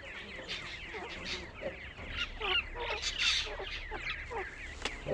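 Francolin chicks peeping over and over in short, quick, falling chirps, with lower short calls from the adult birds mixed in.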